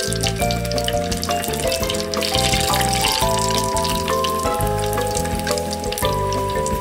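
Panko-coated curry croquettes deep-frying in hot oil, a dense crackling sizzle as they reach golden brown, under background music with a steady bass line and held melody notes.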